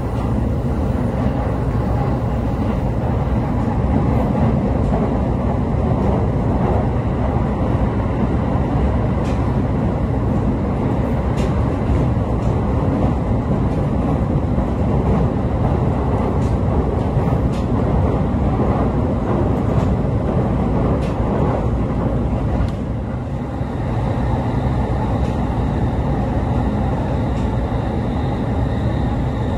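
An E531-series electric train's running noise heard from inside the passenger car: a steady rumble of wheels on rail with a few faint clicks scattered through it. The noise dips briefly about three quarters of the way through.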